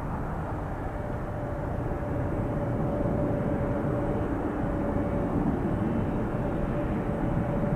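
Jet engines of a departing Boeing 757-300, a steady rushing noise with a faint steady whine, growing slightly louder.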